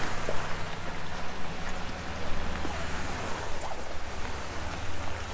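Off-road vehicle engine running at a steady low hum under a rushing, splashing noise of water, with a few small ticks.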